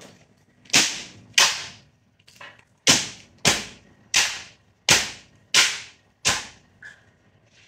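Metal baking tray of piped macaron shells banged down onto a counter, eight sharp bangs with a short ring: two, a pause, then six in a steady rhythm about 0.7 s apart. The tapping knocks air bubbles out of the macaron batter before the shells rest and bake.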